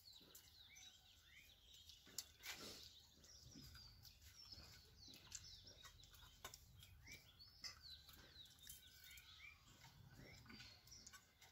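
Faint chirping of small birds, many short calls, with a few soft clicks and clinks of stainless steel bowls and eating.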